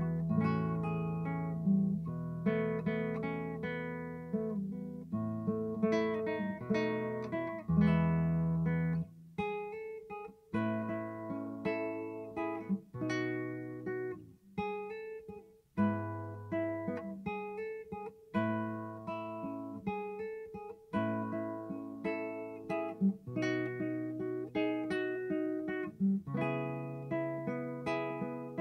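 Yamaha NCX700 nylon-string electro-classical guitar, fingerpicked with a melody over bass notes, each note ringing and then decaying. It is heard through a NUX Optima Air acoustic guitar pedal.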